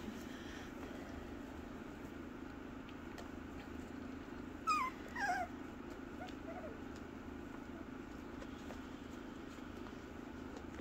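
Three-week-old miniature Bordoodle puppy giving two short, high whimpers about halfway through, each falling in pitch, over a steady low hum.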